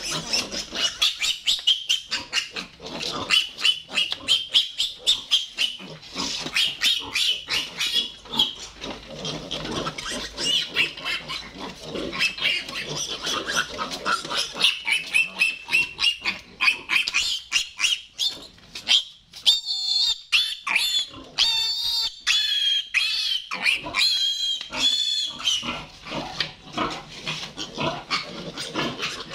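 Piglet squealing in long, high-pitched screams, one after another without pause, while it is held down for treatment.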